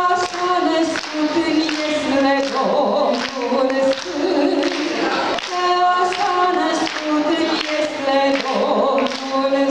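A woman singing solo into a microphone, amplified, a Romanian song in long held notes.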